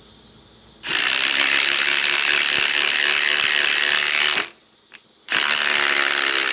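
Ryobi ONE+ HP compact impact wrench running under load, its impact mechanism hammering in two loud bursts: one of about three and a half seconds, then, after a brief pause with a single click, another of about two seconds.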